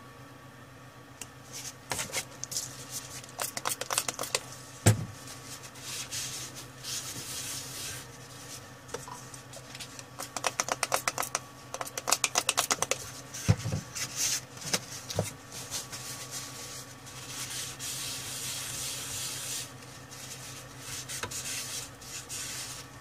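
Paper tissue rubbing and wiping across a graphics card's circuit board, with scattered small clicks and taps and a run of quick ticks around the middle.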